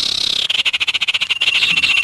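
A rapid, evenly pulsed high trill of an animal call starting about half a second in, with a thin, steady whistled tone joining it partway through.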